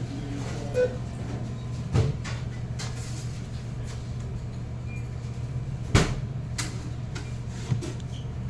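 Steady low hum of a sandwich shop with a few sharp knocks and clatters from counter work, the loudest about six seconds in.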